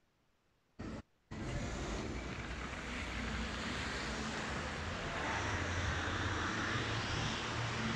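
Steady rumbling outdoor noise, like wind on the microphone or distant traffic, cutting in abruptly about a second in after near silence, with a brief blip just before it.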